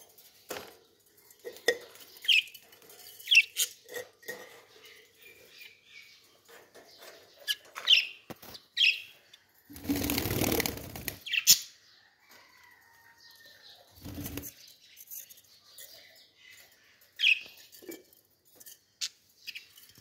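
Small parrots in a cage giving short, high chirps every few seconds. A loud rustling burst lasts about a second and a half around the middle, with a brief low thump a few seconds later.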